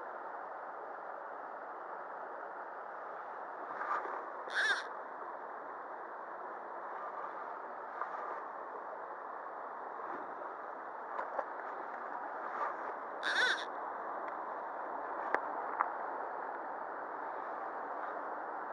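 Shallow river water running steadily over stones and pebbles. A bird calls briefly a few times over it, loudest about four and a half seconds in and again about thirteen seconds in, and there are two sharp ticks near the end.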